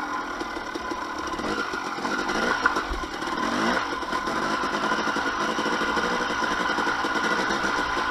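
2007 KTM 250 XC-W's single-cylinder two-stroke engine running under changing throttle, its pitch rising and falling, with a short thump about three seconds in.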